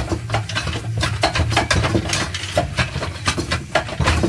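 Irregular metallic clinks and rattles as the 4L60E's input drum assembly is turned to work its 3-4 clutch plates onto the front planet carrier, a stiff fit that takes some fighting. A steady low hum runs underneath.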